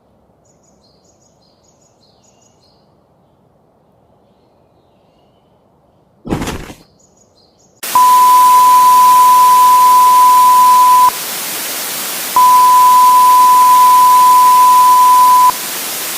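Loud static hiss with a steady high beep tone over it, which sounds twice for about three seconds each with a short gap between. Before the static comes a brief burst of noise, about six seconds in.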